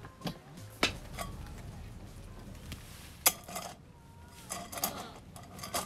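Scattered clinks and knocks of camping gear being handled and set down. The sharpest is a single knock about three seconds in, as a steel growler is set down beside a cooler, followed by a few smaller rattles.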